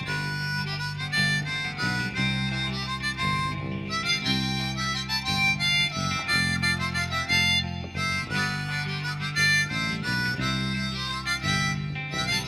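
Closing music with a harmonica lead over a steady low rhythm.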